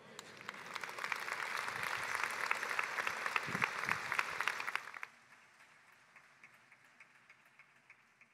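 A large congregation applauding. The clapping builds over the first second, holds, then drops sharply about five seconds in to a few scattered claps that die away.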